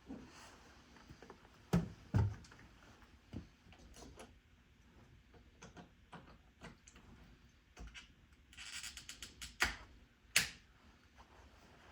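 Scattered clicks and knocks of hard objects being handled, with two louder knocks about two seconds in, then a short rattle and two sharp clacks near the end.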